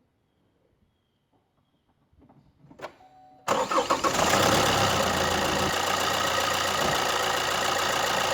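Duramax 2.8 four-cylinder turbo-diesel starting about three and a half seconds in, after a few faint clicks, then settling into a steady idle. The engine's sound-absorbing cover and foam are off, so the diesel clatter comes through unmuffled.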